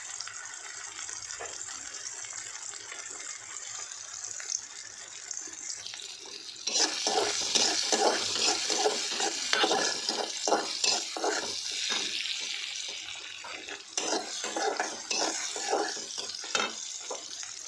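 Onion-tomato masala sizzling in hot oil in a metal kadhai. About seven seconds in, a spatula starts stirring and scraping around the pan, adding a fast run of scrapes over the sizzle.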